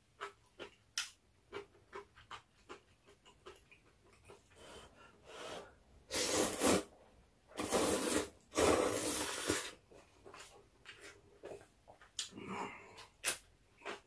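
A person slurping ramen noodles from a spicy stew. Three loud slurps come between about six and ten seconds in, with short wet chewing smacks before and after.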